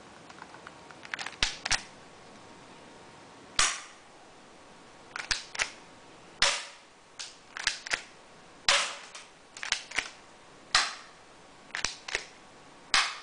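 BB gun pistol firing again and again: sharp pops come every two seconds or so, with smaller clicks between them.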